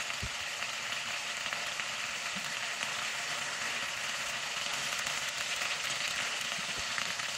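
Steaks frying in hot oil in a pan, a steady, even sizzle.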